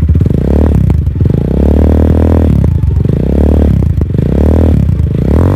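Rusi Classic 250 motorcycle engine through its modified stock muffler, revved in several blips, the pitch rising and falling about four times.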